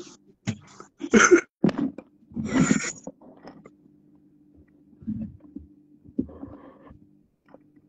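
Short bursts of laughter and voices coming through a video call, loudest in the first three seconds, over a steady low hum.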